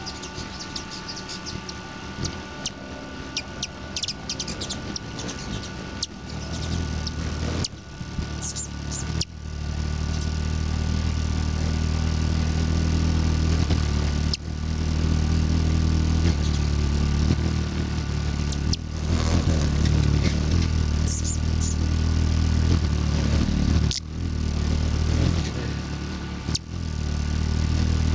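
Hummingbird's wings humming as it hovers at a feeder close to the microphone: a steady low hum that comes in about a third of the way through and breaks off briefly a few times as the bird moves. A few short high chirps.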